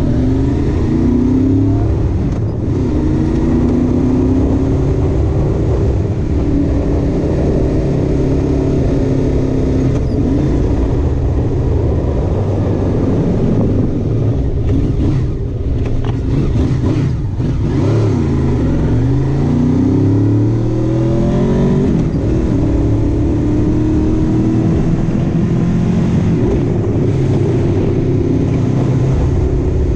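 Honda VFR800 motorcycle's V4 engine heard from on board, pulling away and climbing in rising sweeps through the gears. It eases off a little past halfway, then accelerates again.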